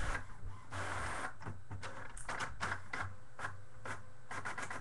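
Computer keyboard typing: irregular clicking keystrokes that turn into a quick, steady run of keys near the end.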